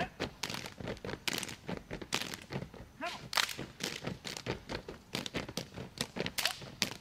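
Gumboot dance: a troupe of dancers stamping and slapping their rubber gumboots on paved ground. It makes a busy, rhythmic run of sharp claps and stomps, several a second.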